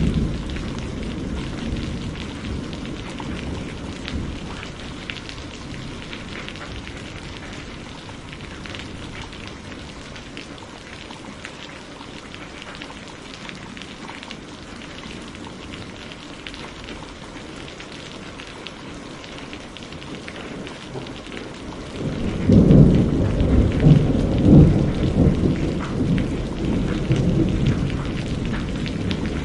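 Steady rain falling during a thunderstorm. A rumble of thunder dies away over the first few seconds, and a fresh, louder peal of thunder breaks in about three-quarters of the way through and rumbles on.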